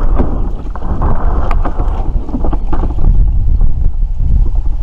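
Plastic kayak hull scraping and grinding over shoreline gravel as it is pushed off into the water, with scattered stone clicks, the scraping easing after about two and a half seconds. Wind rumbles on the microphone throughout.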